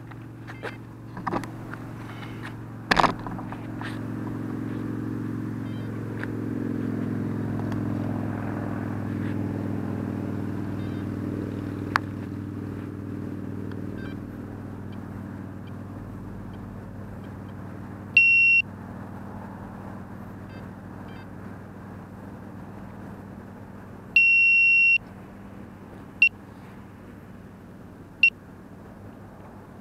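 A few knocks as the quadcopter is handled, then a steady low hum. Partway through, its electronic beeper sounds a half-second beep and later a longer beep, then short single beeps about every two seconds.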